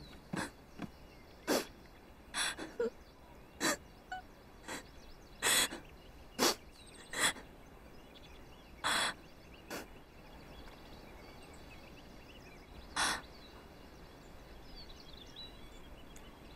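A young woman crying quietly to herself: about a dozen short sniffs and catching, gasping breaths at irregular intervals, most in the first ten seconds and one more a few seconds later.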